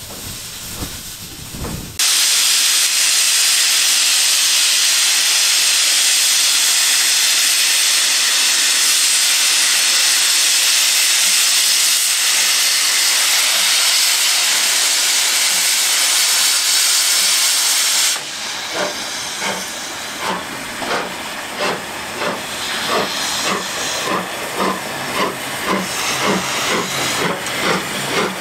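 Steam locomotive letting off a loud, steady hiss of steam that starts and stops abruptly, lasting about sixteen seconds. It is followed by regular exhaust beats that grow louder.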